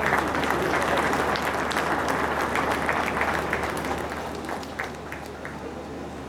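Applause, dense for the first four seconds or so, then thinning out to a few scattered claps.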